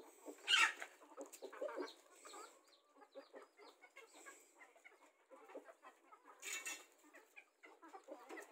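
Free-range chickens clucking, with two louder, brief bursts about half a second in and about six and a half seconds in.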